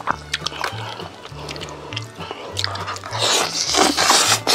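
Close-miked crunching and chewing of crispy roast chicken, with sharp crackly bites, heaviest about three seconds in. Background music with a steady bass line plays underneath.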